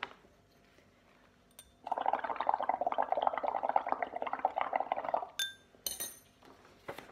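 Bubbling as air is blown through a straw into a glass of soapy water, for about three seconds. A few sharp clinks of glass follow near the end.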